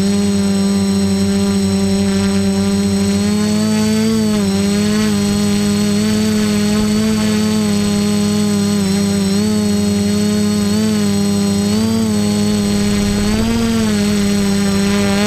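Quadcopter's electric motors and propellers running in flight: a loud, steady hum whose pitch rises and falls slightly several times with throttle corrections.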